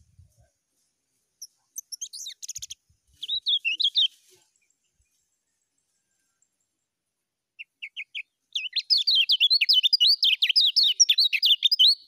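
Kecial kuning (a white-eye) singing: a short scratchy twitter about two to four seconds in, then after a pause a few single notes and a long, fast run of high chirps through the last three and a half seconds, the rapid continuous 'ngejos' song.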